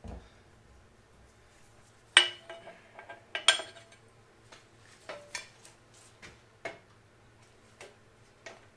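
Loose metal shims clinking against each other as they are sorted through by hand: two sharp ringing clinks about two and three and a half seconds in, then lighter clicks and taps.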